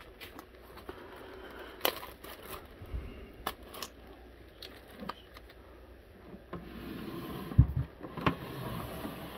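Handling noise: a plastic bag crinkling and scattered light knocks and clicks, with a dull knock late on as the loudest sound.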